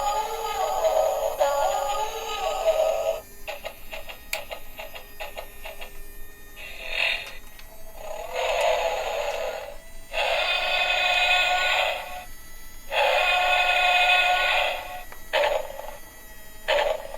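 Remote-control dinosaur robot toy's built-in speaker playing tinny electronic music and sound effects in bursts of two to three seconds, with a stretch of rapid clicking between the first and second bursts.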